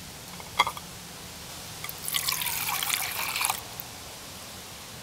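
About 160 ml of water poured into a small camping pot, a short pour of about a second and a half midway through with a slightly falling tone. A single sharp click comes about a second before the pour.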